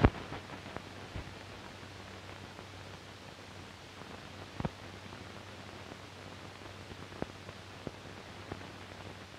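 Hiss and crackle of a blank optical film soundtrack, with a loud pop at the very start, a few more scattered clicks and pops, and a faint steady low hum underneath.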